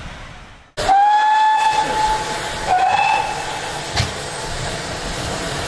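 Steam locomotive whistle: a long blast of about a second and a half, then a shorter second blast. A sharp click follows about four seconds in.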